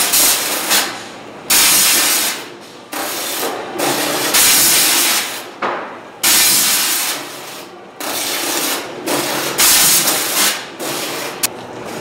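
High-pressure water-jet cutter hissing in repeated sharp bursts, each fading over a second or so, as its nozzles cut cod fillets into portions.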